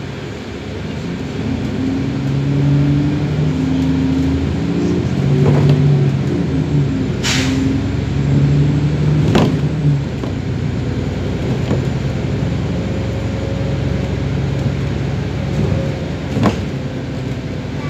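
An Alexander Dennis Enviro 400 double-decker bus driving along, heard from inside the cabin: its engine note swells and drops in steps as it pulls along, over steady road noise. A few sharp knocks or rattles come through, the loudest about seven seconds in.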